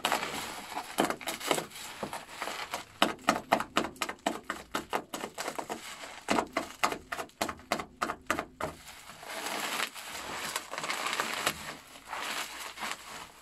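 Clear plastic wrapping crinkling and tearing as it is cut and pulled open by hand: a run of quick, sharp crackles and snaps through the middle, then a steadier rustle near the end.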